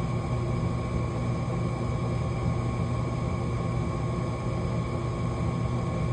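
Gas furnace draft inducer motor running steadily: a low hum with a thin, steady whine above it.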